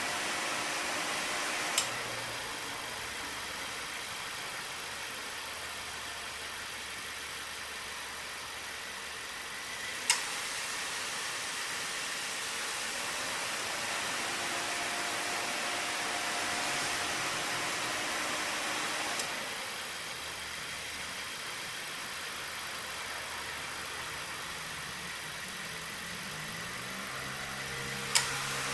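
Subaru Levorg idling with the air conditioning on, a steady hiss under the engine note, and four sharp clicks roughly every nine seconds, the third faint. Each click is the A/C compressor's clutch engaging or disengaging as the compressor cycles on and off, and the compressor itself makes no abnormal noise.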